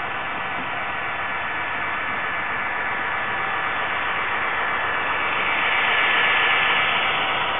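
HO-scale model diesel locomotives with DCC sound running, a steady rushing engine-and-motor noise that grows louder and is loudest about six seconds in, as the locomotives pass close by.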